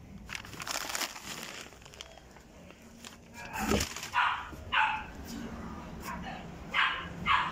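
Dog barking, several short barks about half a second to two seconds apart, starting midway through. Before them, the rustle and crinkle of plastic-wrapped groceries and an insulated delivery bag being handled.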